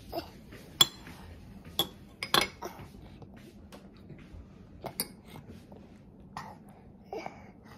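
A toddler's metal-headed fork and spoon clinking and scraping against small bowls, with a few sharp clinks scattered through, the loudest about a second in, around two and a half seconds in and near five seconds.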